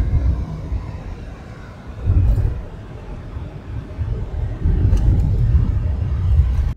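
Low, uneven rumble of road and wind noise from a moving vehicle, swelling and easing.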